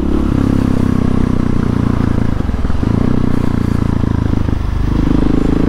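Husqvarna 701 Supermoto's single-cylinder engine through a Wings aftermarket exhaust, running steadily as the bike rides along. Its note shifts in pitch a couple of times, about three and five seconds in.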